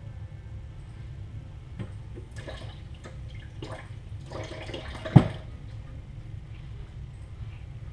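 Steady low hum with a series of light knocks and rustles, then one sharp knock about five seconds in.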